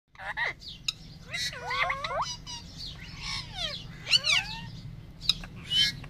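Caged parakeets chirping and whistling: rapid calls that glide up and down in pitch, several overlapping at once, with a few sharp clicks among them.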